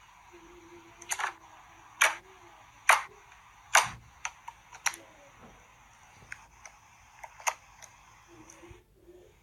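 Slime being pressed, its air pockets popping: four sharp pops about a second apart, then a run of smaller, quicker clicks. Under them is a faint steady hiss that cuts off shortly before the end.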